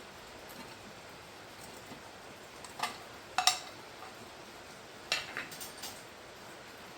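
Small metal tools and parts clinking as they are handled: a couple of sharp clinks about halfway through, then a quick run of lighter clinks near the end.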